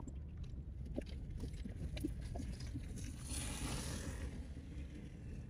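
Steady low rumble of a car cabin while driving, with a rush of noise that swells and fades about halfway through and a few light clicks.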